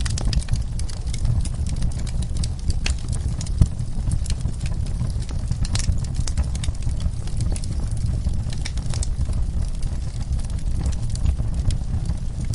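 Wood fire burning in a fireplace, crackling with irregular sharp pops over a steady low rumble, one pop louder than the rest a few seconds in.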